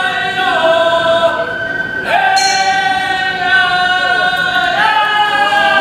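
Gion bayashi festival music: transverse bamboo flutes playing long held notes together, sliding into a new note about two seconds in and again near the end.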